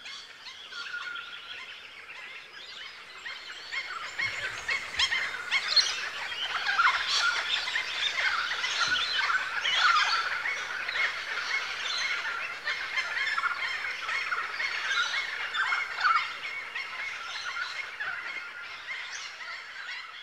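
A flock of birds calling at once: a dense chatter of short squawks and chirps that grows louder about four seconds in.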